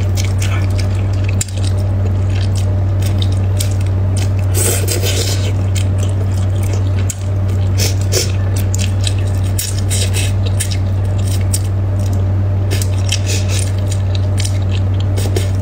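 Close-miked wet mouth sounds of someone eating braised fish in chilli sauce: squishy chewing, lip smacks and short wet clicks, over a steady low hum.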